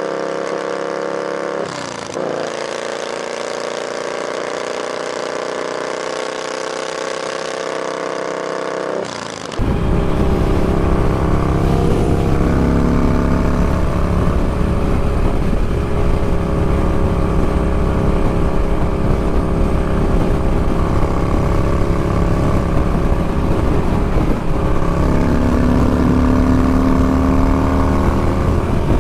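Yamaha SCR950 V-twin motorcycle engine running steadily, then about ten seconds in a sudden switch to riding on the move: the engine runs under a loud rush of wind buffeting the microphone.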